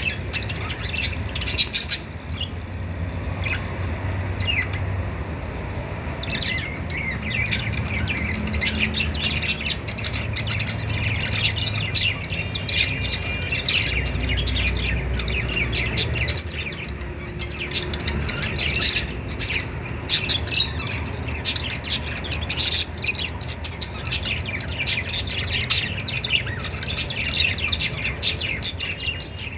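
Several budgerigars chirping and chattering in quick, overlapping calls, sparse at first and busier from about six seconds in, over a low steady hum.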